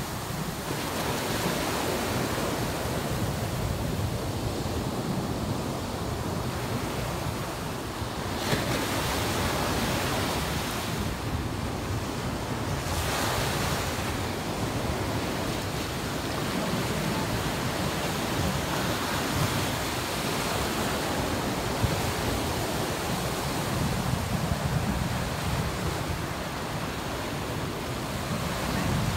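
Ocean surf: waves breaking and washing in along a sandy beach, a steady rushing noise.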